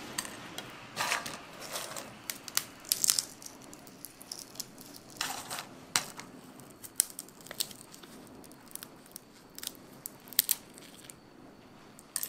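Roasted cacao beans being cracked and peeled by hand: irregular crisp crackles and snaps of the brittle shells breaking, a few louder cracks among them.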